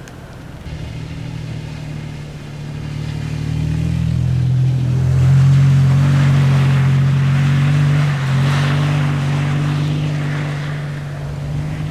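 A motor vehicle's engine running steadily with tyre and wind noise. It grows louder to a peak about halfway through, then slowly fades.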